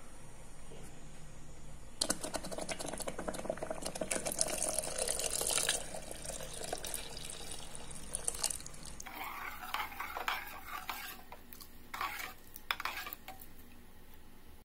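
A spoon stirring milk into mashed moong dal in a metal pot, with the liquid sloshing and the spoon clicking and scraping against the pot. It starts about two seconds in and comes in uneven bursts in the latter part.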